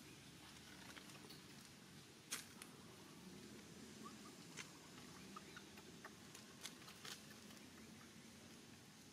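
Near silence: a faint steady low hum with a few soft scattered clicks, the loudest about two seconds in.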